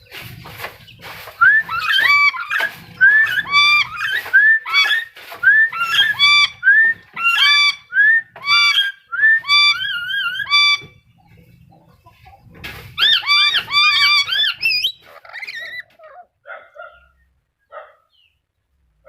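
Black-capped lory calling: a long run of loud, repeated cries that rise and fall in pitch, about two a second, then a pause of about two seconds and another burst, trailing off into soft scattered sounds near the end.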